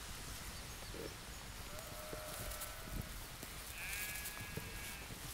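Sheep bleating: two long drawn-out bleats, the second higher-pitched than the first, over steady wind noise and a few scattered footfalls on the grass and rock.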